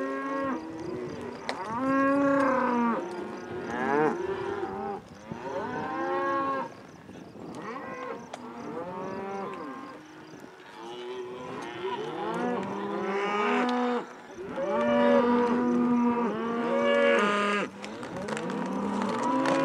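A herd of cattle mooing and bellowing on a cattle drive: many long calls overlapping one another, a little quieter for a few seconds in the middle.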